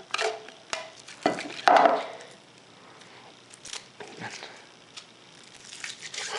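Handling noise of a GoPro HD Hero in its clear plastic waterproof housing being turned over in the hands: scattered clicks and plastic rubbing, loudest about a second and a half in, then fainter ticks.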